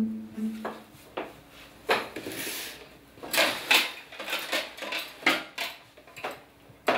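Cups and saucers being handled on a kitchen table: irregular clinks and knocks, with a few longer brushing sounds in between.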